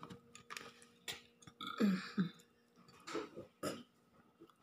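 A person burping: a few short, low belches with a falling pitch, the first pair about two seconds in and more a second later, after a full meal. Faint clicks come before them.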